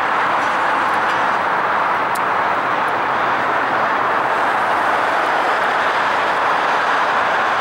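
Steady, even vehicle roar with no single event standing out: road traffic hiss mixed with a distant approaching diesel freight train.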